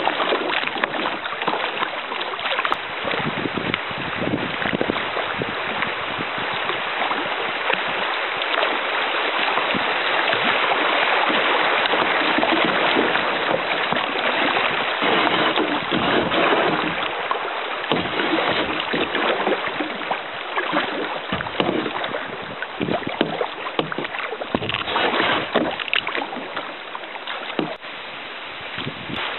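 River water rushing and splashing through a shallow riffle around a kayak's hull, loudest midway, easing off near the end as the water calms.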